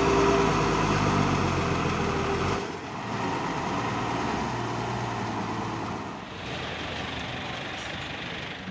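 A motor vehicle's engine running steadily. The sound changes abruptly about two and a half seconds in and again about six seconds in.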